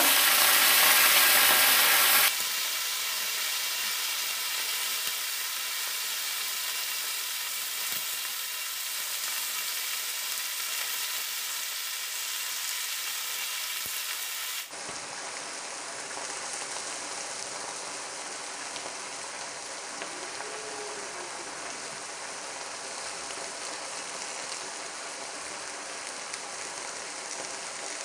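Bottle gourd greens sizzling loudly as they hit hot soybean oil in an iron wok. After about two seconds this settles into a steady frying hiss, which drops a little softer about halfway through.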